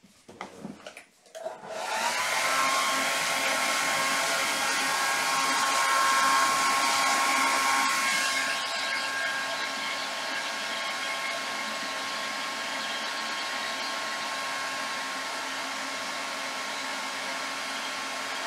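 Hair dryer switched on about two seconds in, its motor whine rising to a steady pitch, drying the wet acrylic paint so the next layer is not soaked up by the white beneath. It runs a little quieter from about eight seconds on and cuts off at the end.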